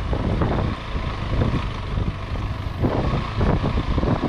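Motorcycle engine running at low speed while the bike rides over a rough dirt track. Frequent short knocks and rattles from the bumps come through a steady low rumble.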